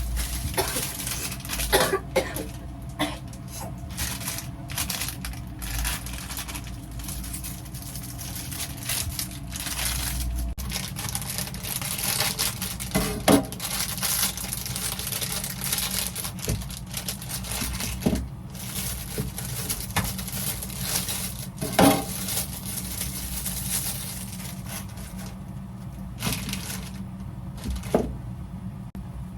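Things being handled: a run of light knocks and clinks, a couple of them ringing briefly, with some rustling, over a steady low hum.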